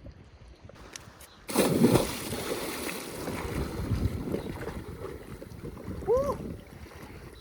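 A person jumping into the sea: a sudden loud splash about a second and a half in, followed by churning, sloshing water. A short rising-then-falling vocal cry comes near the end.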